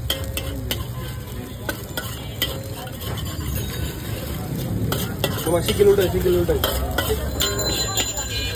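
Metal spatula scraping and clicking against a steel wok as eggs are stirred and scrambled, with the eggs sizzling in hot oil over a low steady rumble.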